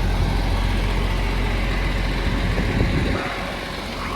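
Strong wind buffeting the microphone over a truck's diesel engine idling; the heavy low rumble eases about three seconds in.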